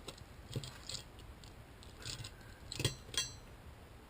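Light metallic clicks and clinks of small crankshaft main-bearing parts being handled and taken apart, with two sharper ringing clinks about three seconds in.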